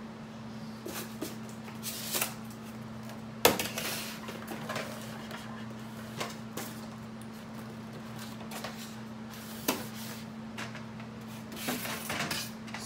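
Styrofoam packing being pulled apart and rubbed, with scattered knocks as the model articulated dump truck is handled in its foam tray and lifted out. The sharpest knock comes about three and a half seconds in, over a steady low hum.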